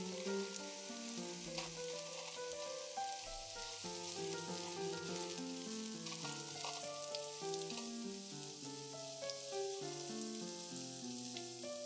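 Sliced onions sizzling and crackling as they fry in butter and oil in a nonstick frying pan, stirred now and then with a silicone spatula. Soft background music with held melodic notes plays over it.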